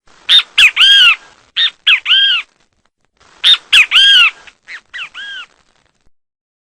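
Great kiskadee (bem-te-vi) giving its loud three-note 'bem-te-vi' call four times, in two pairs. Each call is two short notes and a longer arched final note, and the second call of each pair is quieter.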